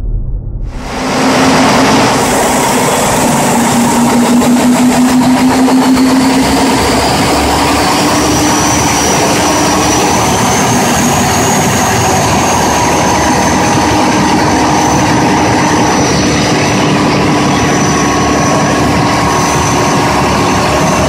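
MAN D2842 V12 twin-turbo marine diesel engine running loudly and steadily, with a faint high whine over it that rises slightly partway through.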